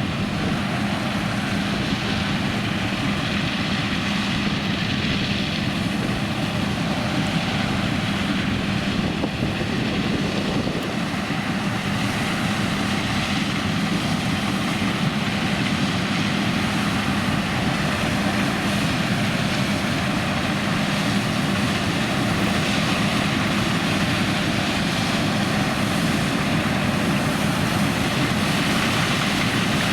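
John Deere X9 1100 combine running steadily under load while harvesting oilseed rape: an even mechanical drone with a constant low hum, growing slightly louder toward the end.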